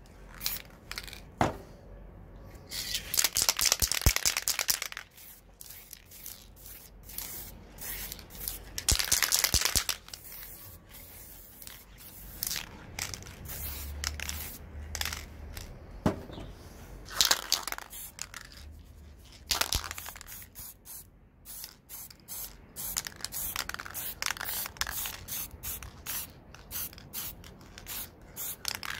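Aerosol spray paint cans hissing as paint is sprayed. There are two longer sprays of about two seconds each and many short bursts in between.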